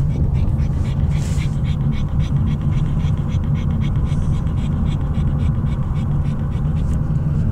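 A pug panting quickly and evenly, over the steady low rumble of a car's cabin on the move.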